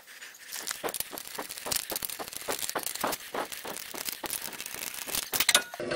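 Socket ratchet clicking as it spins a loosened wheel lug nut off: a quick, uneven run of sharp clicks, about four or five a second.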